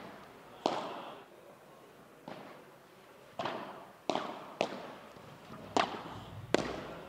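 Padel rally: the ball struck back and forth with solid padel rackets and bouncing off the court and walls, a string of about seven sharp pops, each with an echoing tail.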